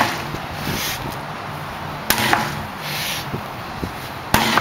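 Sledgehammer striking a large tyre twice, about two seconds apart, each blow a sharp smack; the second comes near the end.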